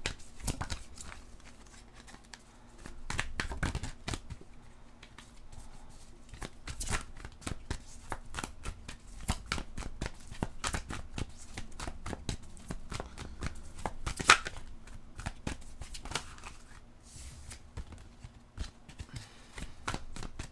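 Tarot cards being shuffled by hand: an irregular run of soft snaps and slides, thicker about three seconds in, with one sharper snap about two-thirds of the way through.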